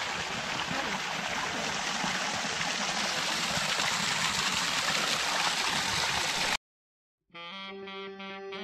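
A small stream and a trickle spilling over a stone wall, a steady rush of running water that cuts off abruptly about six and a half seconds in. After a short silence, music with held notes starts near the end.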